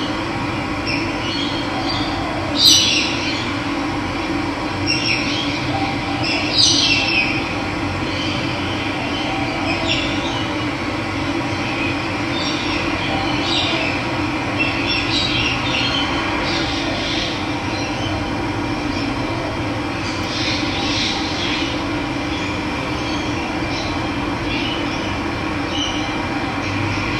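Running water rushing steadily, with wild birds chirping now and then over it, loudest about three and seven seconds in.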